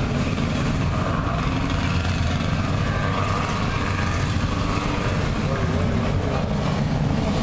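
Several jet ski engines idling together at the start line, a steady even drone.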